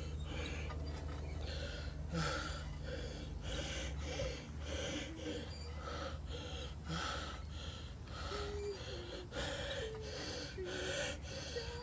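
A person breathing hard in quick, rhythmic gasping breaths, a little under two a second, over a low steady hum that fades out about eight seconds in.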